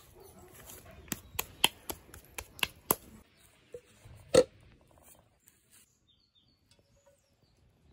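Chapati dough being kneaded by hand in a metal pot: a run of sharp knocks and clicks as hands and dough strike the pot, then one louder knock about four seconds in.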